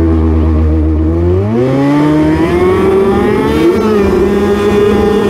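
Ski-Doo snowmobile engine, heard up close from a camera on its hood: running low and steady, then revving up about a second and a half in, rising in pitch over a couple of seconds and settling into a steady higher run as the sled pulls away.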